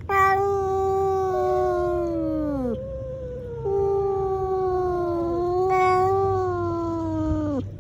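Angry cats yowling: two long drawn-out yowls, each sliding down in pitch as it ends, with a second, higher cat voice overlapping at times, typical of a cat standoff before a fight.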